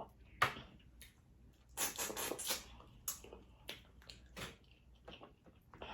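Close-up eating of a seafood boil: wet chewing and sticky smacking with scattered clicks, and a denser stretch of crackling about two seconds in.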